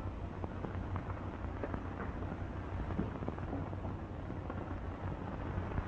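Steady low hum and crackling hiss of an old optical film soundtrack, with faint scattered clicks.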